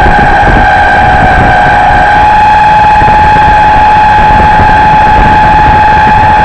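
Radio-controlled model Canadair CL-415 flying boat's motors and propellers in flight, a steady high drone holding one pitch that rises slightly, over a low rumble of wind on the microphone.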